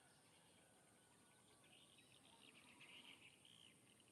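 Near silence: faint outdoor ambience with a steady high hiss and a run of quick, high chirps starting about one and a half seconds in.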